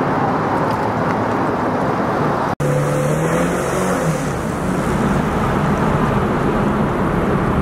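Outboard motor running under throttle, pushing a small aluminium jon boat up onto its trailer in shallow water, with the propeller churning the water behind it. The sound drops out for an instant about two and a half seconds in.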